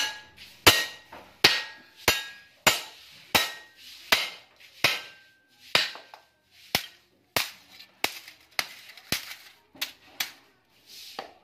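A steady series of sharp hammer blows, about three every two seconds, on the rusted steel frame and transformer core of an old welding machine being broken apart to get at its copper windings; a few blows leave a brief metallic ring.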